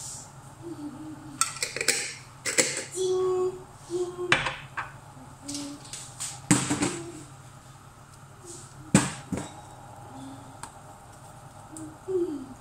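Kitchen dishes and utensils clattering: a string of sharp knocks and clinks, the loudest about nine seconds in. A brief pouring hiss right at the start as powder runs from a glass jar into the pot.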